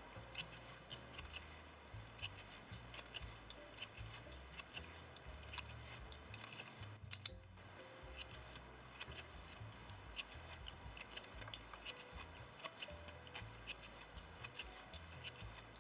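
Soft, irregular ticks and rustles of cotton tatting thread being tensioned and snapped taut over the fingers as double stitches are tied with a plastic tatting shuttle, several a second, with one sharper click about seven seconds in.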